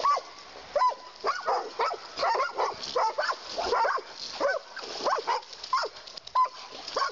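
Canines yelping and barking in short, high calls, about two a second, during a fight between dogs and a wounded coyote.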